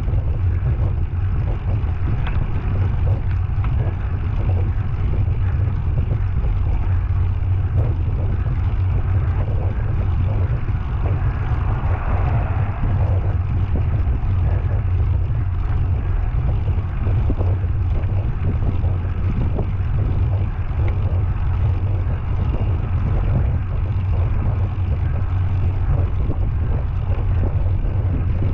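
Heavy breathing of a person climbing hard, over a steady low rumble.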